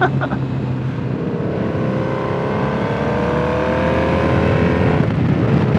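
Motorcycle engine pulling under acceleration while riding, its note rising steadily for a few seconds before levelling off, over wind and road noise.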